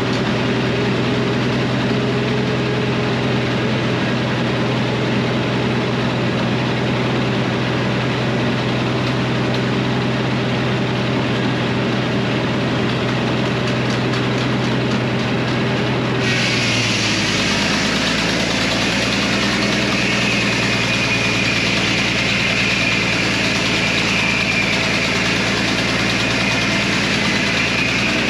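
Frick circular sawmill running with its power unit droning steadily. A little past halfway, a high-pitched sawing whine sets in suddenly as the blade enters a maple log, and the engine's drone drops slightly in pitch under the load.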